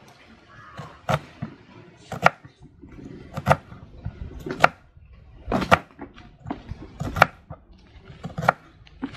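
Kitchen knife chopping a red onion on a wooden cutting board: sharp knocks of the blade on the board roughly once a second, with softer cutting ticks between them.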